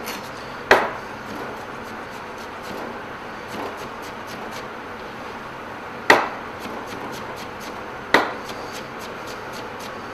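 Chef's knife dicing a red bell pepper on a cutting board: quick light taps of the blade through the pepper onto the board, with three louder knocks, one about a second in and two more about six and eight seconds in.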